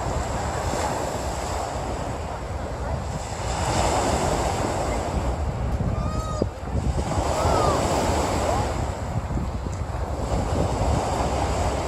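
Sea waves washing onto the beach, swelling twice, with wind rumbling on the microphone.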